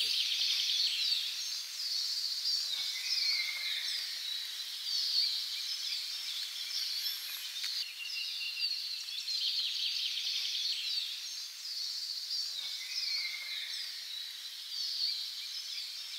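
Birdsong: many quick high chirps and short descending trills from several birds, in a pattern that repeats about every ten seconds.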